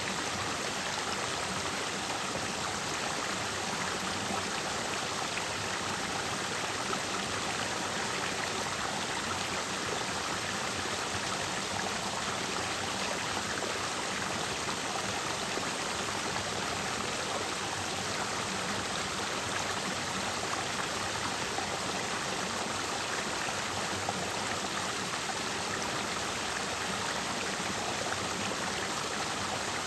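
A clear mountain stream flowing over and around rocks, an even, unbroken rush of water.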